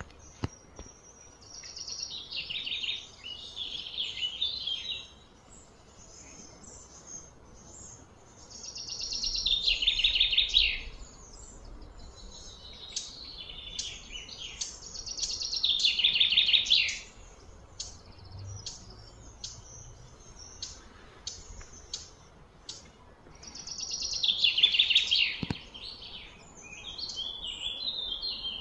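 Bird song: a loud, high, trilling phrase repeated four or five times. Each phrase builds up over a couple of seconds and then stops abruptly, with softer short chirps in between.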